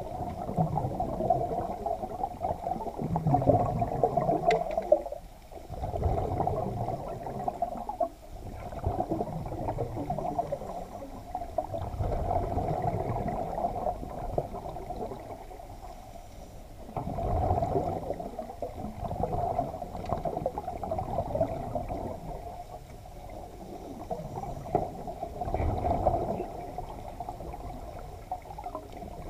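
Muffled water sloshing and gurgling picked up by a camera underwater, swelling and fading every few seconds.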